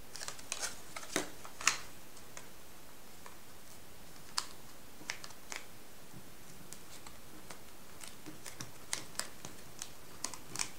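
Metallised paper being folded and creased by hand: scattered crisp crackles and clicks, busiest in the first two seconds, then sparser.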